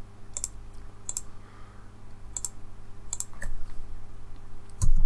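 Computer mouse clicking, about six short sharp clicks at irregular intervals, as points of a mask outline are placed with Ctrl-clicks. A steady low hum runs underneath, and a low thump comes near the end.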